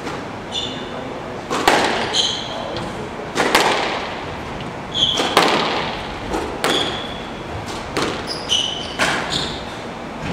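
Squash rally: the ball cracks off racquets and walls about every one and a half to two seconds, each hit echoing around the court, with short sneaker squeaks on the wooden floor between the shots.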